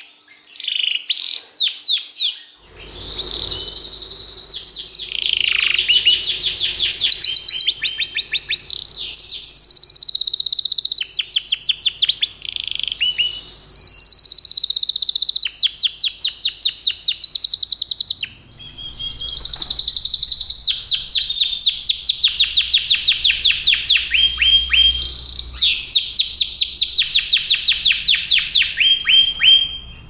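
Yorkshire canaries singing: long, fast trilled phrases of rapidly repeated high notes and rolls, broken by short pauses, with a different bird taking over after a break a little past halfway.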